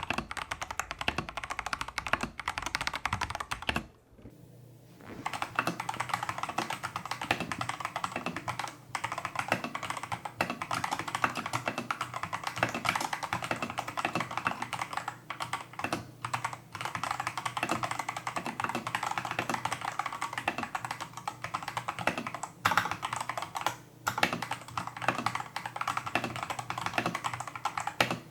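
Continuous fast typing on a Tester68 mechanical keyboard fitted with stock, factory-lubed Holy Panda clone tactile switches and XDA-profile keycaps: keys clacking in quick succession, with a brief pause about four seconds in.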